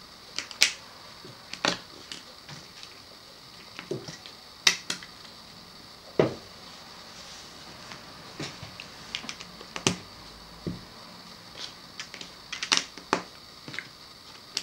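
Plastic Lego bricks being handled and pressed together: scattered, irregular clicks and taps.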